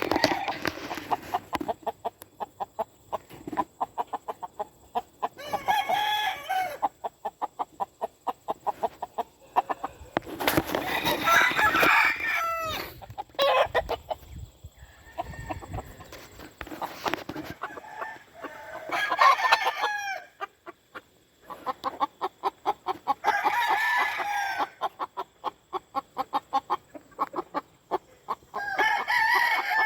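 Game roosters crowing about five times, a few seconds apart, with a fast repeated ticking between the crows.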